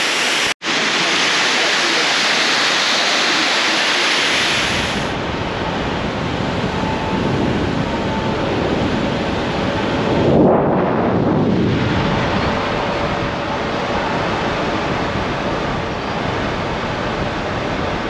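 A waterfall rushing loudly for the first four or five seconds. Then a steady rumble of wind and road noise from a moving vehicle, with a louder surge about ten seconds in.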